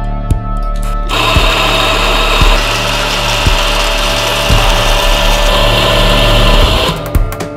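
Anfim SP II espresso grinder's motor running with its burrs grinding coffee beans: a steady whirring grind that starts about a second in and cuts off near the end. Background music with a steady beat plays under it.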